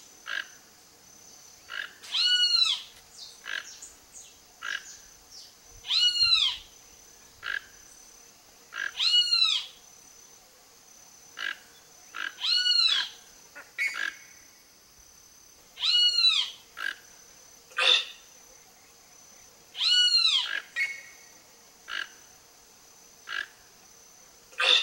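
Toco toucan calling: a croaking note that rises and falls in pitch, repeated six times about every three to four seconds, with short softer notes in between.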